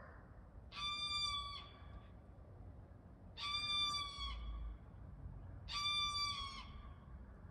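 An animal calling three times, each call a high, steady-pitched cry just under a second long, about two and a half seconds apart.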